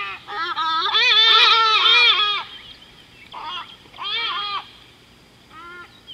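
An animal calling in a run of wavering, warbling cries, loud for the first two seconds or so, then shorter and fainter calls every second or so.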